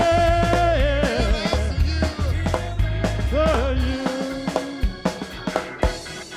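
Live gospel worship music: a voice singing over a band with bass and drum hits. The bass drops out about four seconds in.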